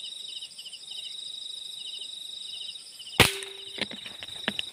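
Crickets chirping steadily in a fast pulsing pattern, then about three seconds in a single sharp air rifle shot, followed by a brief ringing tone and a few faint clicks.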